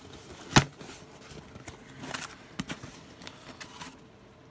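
A cardboard shipping box being handled and opened by hand: one sharp knock about half a second in, then scattered lighter taps and rustles.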